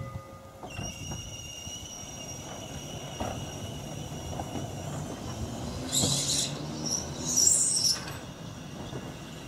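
Double-deck electric tram running along the track: a steady rumble with a high whine, then sharp squeals from the wheels on the rails about six and seven and a half seconds in.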